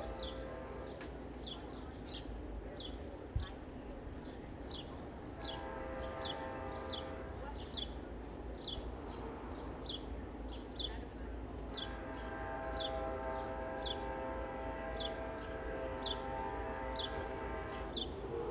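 Horn of an approaching Amtrak GE P42 Genesis diesel locomotive, sounding in long blasts. One blast ends about a second in, a second of about two seconds comes around six seconds in, and a longer one of about five seconds begins about twelve seconds in.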